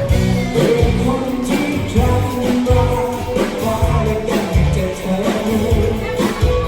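Pop song with a male or female vocalist singing over a steady beat, bass and guitar.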